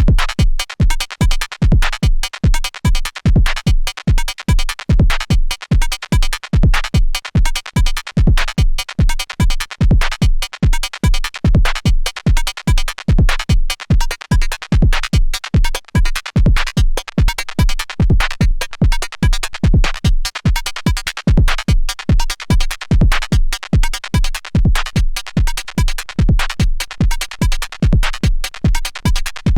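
Erica Synths Perkons HD-01 drum synthesizer playing a steady electronic drum pattern: a deep kick on an even beat with sharper percussive hits between.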